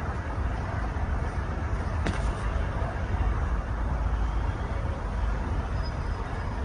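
Steady low rumble of outdoor background noise, with a faint click about two seconds in.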